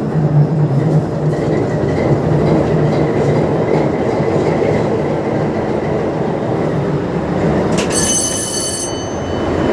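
Diesel locomotive engine running just after start-up, a loud steady rumble. About eight seconds in there is a sharp click, then a high tone that lasts about a second.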